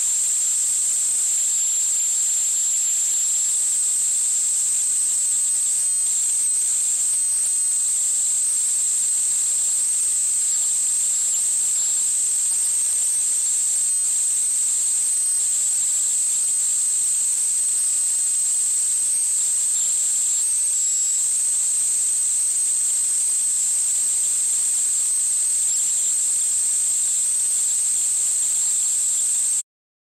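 A steady high-pitched hiss with a thin, unchanging whistle-like tone in it, cutting off suddenly near the end.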